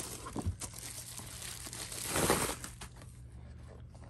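Plastic bubble wrap crinkling and rustling as a boxed toy set is slid out of it by hand, loudest about two seconds in.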